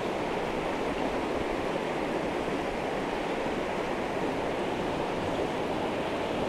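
Fast-flowing river current rushing steadily, an even wash of running water with no breaks.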